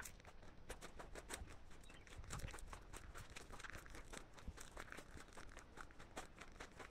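Faint crunching footsteps on a dry, gravelly dirt trail, an irregular run of small crackles several times a second.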